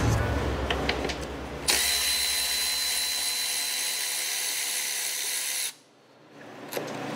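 Cordless electric ratchet spinning a bolt out with a steady motor whir for about four seconds, after a few light clicks as the socket is fitted. The whir cuts off suddenly.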